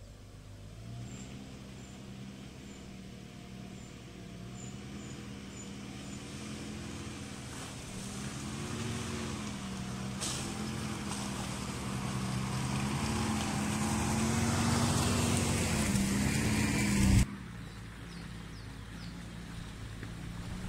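Opel Frontera 2.0i's two-litre petrol four-cylinder engine running at low revs as the SUV crawls closer over a muddy track, growing steadily louder with small rises and falls in pitch. The sound cuts off abruptly near the end, and a fainter engine sound carries on.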